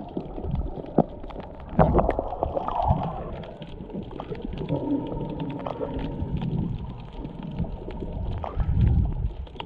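Muffled underwater noise as heard by a camera submerged in its waterproof housing: low rumbling water movement that swells twice, with scattered faint clicks and crackles.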